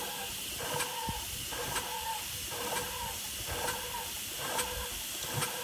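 Steam hissing from a 3-inch-scale Fowler R3 traction engine as it turns over slowly and struggles to run in reverse, with a faint regular pulse about once a second. The owner suspects the reverse valve timing is wrong.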